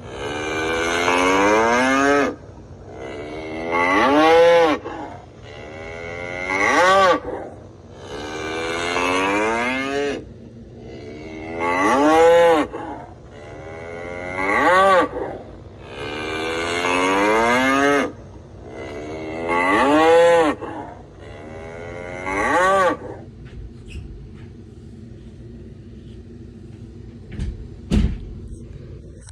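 Bull bellowing loudly, three times over in the same pattern: one long drawn-out bellow followed by two shorter arching ones. It stops about 23 s in, leaving a low steady background rumble and a brief knock near the end.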